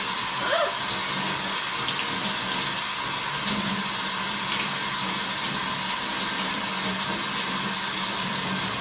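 Household shower spray running steadily onto a blue-and-gold macaw on its shower perch: an even, continuous hiss of falling water.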